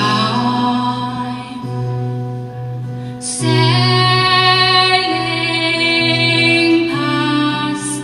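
A woman's lead vocal sings long, held notes of a slow ballad live through a PA, over soft sustained accompaniment, and swells into a louder high note about three and a half seconds in.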